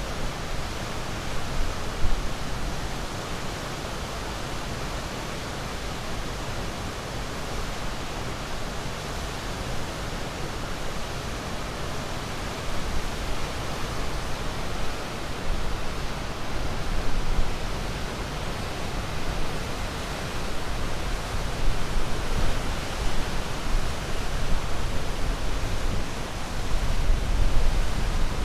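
Ocean surf: a steady rushing wash with a deep rumble, swelling louder every few seconds as waves come in.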